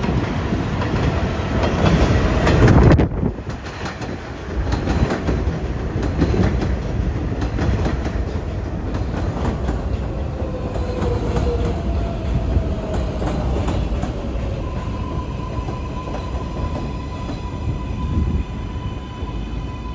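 R188 subway train pulling into an elevated platform, its wheels clacking over the rail joints and loudest as the front passes about two to three seconds in. As it slows, thin squealing and whining tones from the wheels and brakes come in over the second half.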